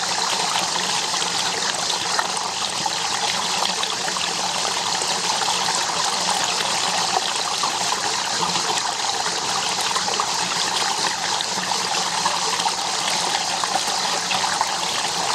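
Water running steadily, an even rushing and trickling.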